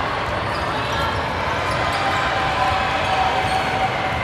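A ball bouncing on a hard court floor during a game, with the voices of players and spectators behind it.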